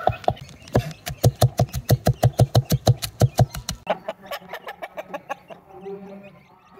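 A knife chopping meat on a board in quick, even strokes, about six or seven a second, for about three seconds, then slowing to lighter, scattered taps.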